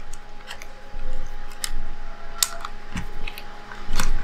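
Irregular small clicks and taps of tools and fingers working on a disassembled Sony A7R Mark I camera body, with several separate sharp ticks and the loudest two near the end, as the back cover is loosened.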